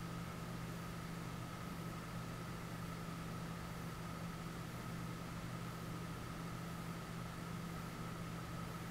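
Steady, unchanging machine hum and hiss, with a faint high whine held throughout.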